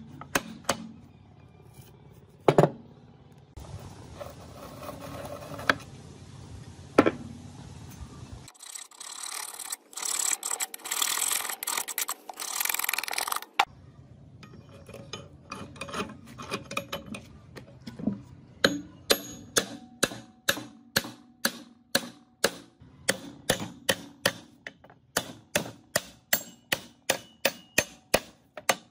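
Metal-on-metal tapping on a punch set inside a rusty cast-iron gearbox, driving out a shaft and its bearing: in the second half a steady run of sharp taps, about two a second. Earlier come a few scattered knocks of metal parts and about five seconds of loud hissing.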